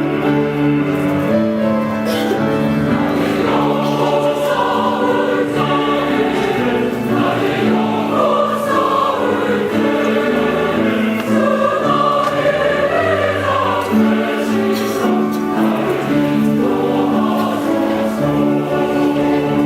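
Church choir singing a hymn in Korean in several-part harmony, with long held chords.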